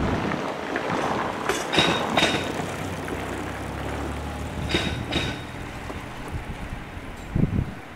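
Train running past over a level crossing, its wheels clacking over the rail joints in quick pairs. A low motor hum sounds in the middle, and the noise falls away near the end.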